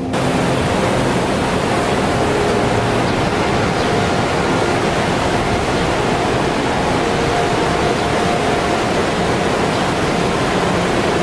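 Niagara River rapids rushing: a loud, steady wash of whitewater noise.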